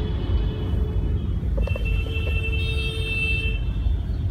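Steady low road and engine rumble heard from inside a car moving through heavy city traffic, with a high steady tone held for about two seconds in the middle.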